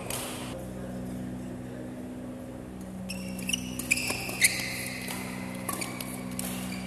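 Badminton rally: rackets smacking the shuttlecock and court shoes squeaking on the floor, starting about three seconds in, over a steady low hum.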